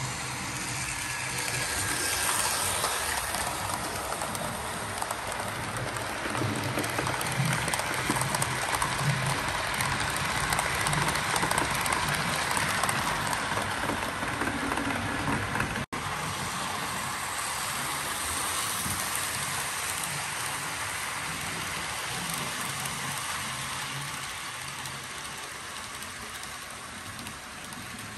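Model freight train running along its track: a steady rattle and rumble of the cars rolling over the rails. It drops out for an instant about two thirds of the way through, then carries on.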